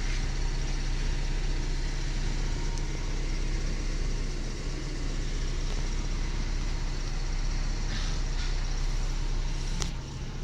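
Kia Pride CD5's engine idling steadily, a constant low hum, with one short click near the end.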